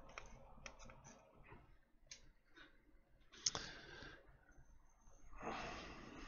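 Faint small clicks and taps of a circuit-board holder and hand tools being handled at a bench, with one sharper click about three and a half seconds in and a short rustle near the end.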